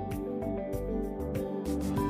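Background music: held notes over a bass line and a steady beat of about two strokes a second.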